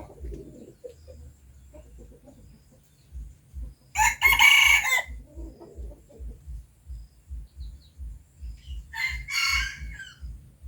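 A bird gives two loud, harsh calls about five seconds apart, each lasting about a second. Under them a soft low thudding repeats a couple of times a second.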